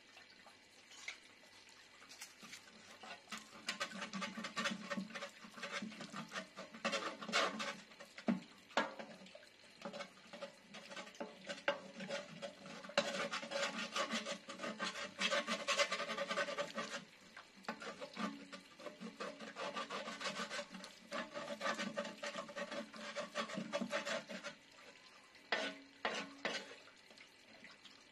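A flat metal scraper scraping the crusted outside of an old metal pot, in runs of quick scraping strokes with short pauses, the loudest run about halfway through.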